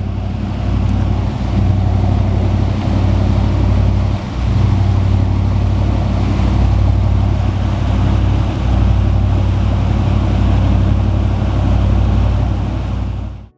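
Bruno & Stillman 35 lobster yacht underway: the steady drone of its inboard engine under a rush of water and wind noise.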